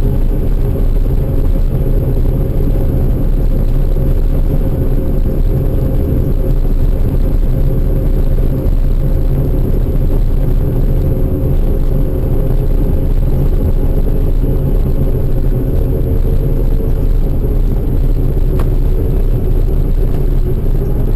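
Large farm machine engine running steadily under load, a loud, even low drone with a steady hum on top.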